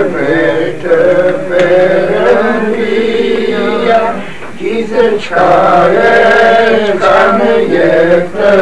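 A solo male voice chanting a slow melody in long, wavering held notes, with a couple of short breaks for breath.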